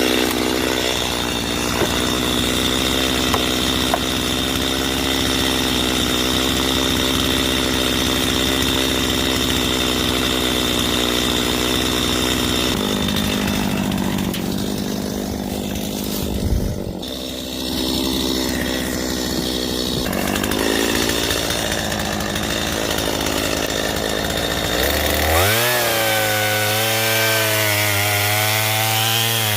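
Gas two-stroke chainsaw running at full throttle and cutting into a large tree trunk. Its pitch drops under load about halfway through, then settles to a lower, wavering tone near the end.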